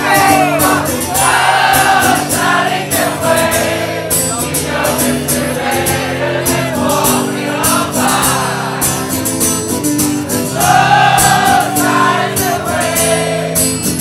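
Live rock band playing a song: amplified electric guitar and drums with a sung vocal line over held chords.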